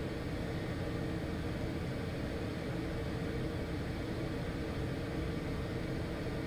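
Piper Meridian's Pratt & Whitney PT6A turboprop running steadily while the aircraft taxis, heard from inside the cockpit as an even drone with a low hum.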